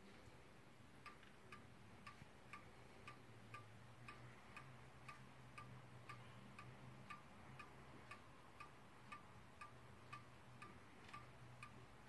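Weight-driven pendulum wall clock with brass weights ticking evenly, about two ticks a second: the clock is now in beat after being shifted on the wall. A faint low hum lies underneath.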